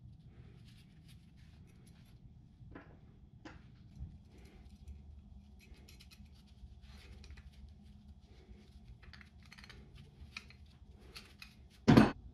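Metal pipe fitting being turned by hand along a threaded steel rod, with faint, irregular metallic scraping and clicking of the threads. Near the end, a single loud knock as the rod and fitting are set down on the wooden bench.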